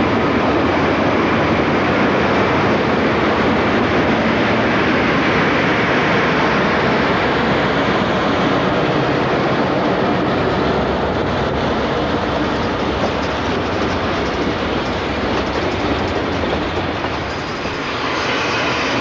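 Santa Fe diesel freight train passing close by: the locomotives' diesel engines run loud and steady, then the freight cars roll past with wheels clattering over the rail joints.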